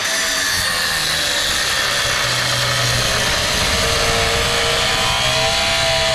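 Angle grinder with a cutting disc running steadily as it cuts into the VW Polo's gearbox casing. Its whine wavers slightly as the load changes.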